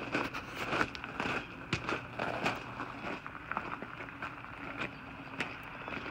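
Footsteps crunching on railway track ballast, an uneven series of short gravelly crunches, over a steady low hum.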